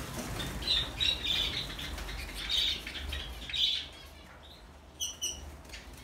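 Small cage birds chirping: a run of short, high calls through the first four seconds, then a few brief, higher chirps about five seconds in.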